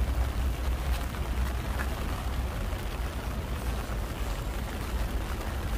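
Heavy rain falling and pattering on an umbrella, over a steady low rumble.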